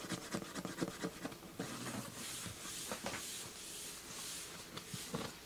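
Fingers scratching and rubbing across the outside of a cardboard box: a few short scratches, then a run of brushing strokes about twice a second.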